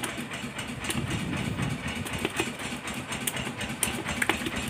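An engine running steadily on a small fishing boat, giving a low, even hum, with a few short clicks and knocks from the handline being worked over the side.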